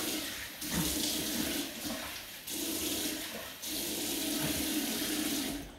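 Bathroom tap running into a sink while cupped hands catch the water and splash it onto the face, the flow broken up every second or so. The water stops near the end.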